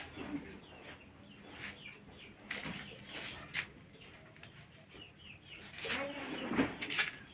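Scattered light knocks and rustles, with faint chicken clucking near the end.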